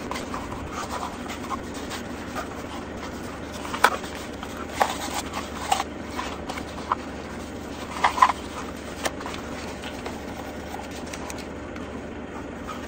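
1000-grit sandpaper rubbed by hand along the cut edges of a Kydex holster shell, dressing the edges smooth: a steady scratchy rubbing with a few short clicks and taps of the plastic in the hands.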